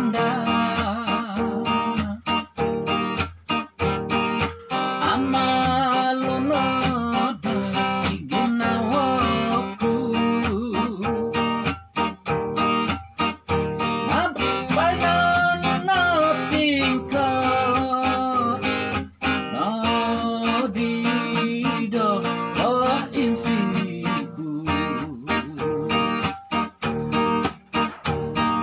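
Acoustic guitar strummed steadily in a song's instrumental passage, with a man's wordless singing or humming over it in places.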